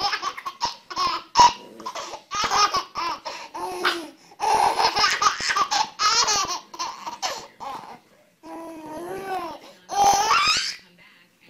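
A baby laughing in repeated high-pitched bouts, with short breaks about four seconds in and again around eight.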